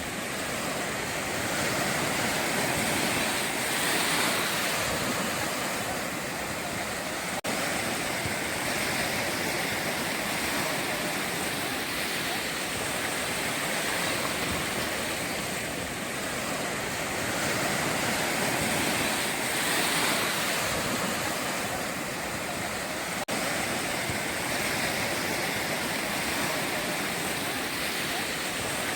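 Sea surf breaking on the shore: a continuous wash of water that swells and eases every few seconds as the waves come in.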